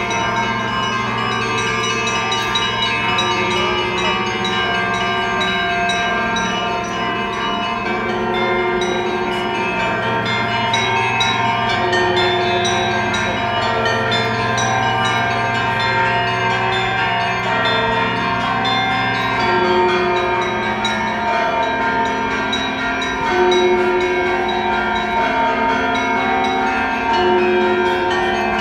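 Orthodox church bells of St. Michael's Golden-Domed Cathedral ringing a peal (peredzvin): many bells of different pitches are struck in quick, overlapping strokes, each ringing on. A deep big-bell tone sounds beneath them until about two-thirds of the way through.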